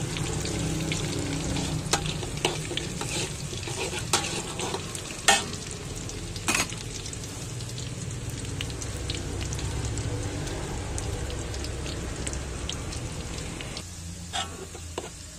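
Sliced shallots and garlic sizzling in oil in a wok as they are sautéed until fragrant, with a metal spatula stirring them and clinking sharply against the wok now and then. The sizzle gets quieter near the end.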